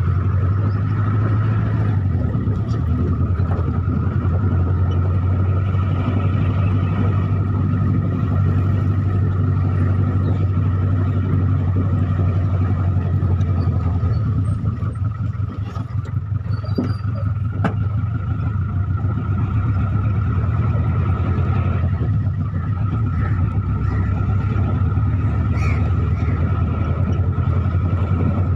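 Hindustan Ambassador taxi under way, heard from inside the cabin: a steady low engine drone with road noise and a thin steady whine above it. It eases off briefly a little past halfway, then picks up again.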